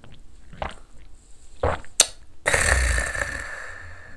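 A man knocking back a shot of soju: a few short swallowing sounds, then a long, loud, breathy exhale after it goes down, starting about halfway through and fading away.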